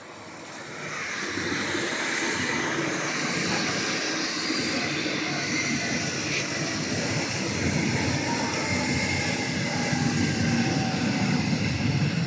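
Electric commuter train running past on the nearby tracks, a steady rumble of wheels on rails that builds up over the first second or so and then holds.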